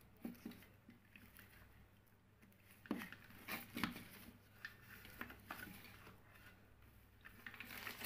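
Faint scattered taps and clicks of hands handling wires, a screwdriver and plastic switch housings, over a low steady hum.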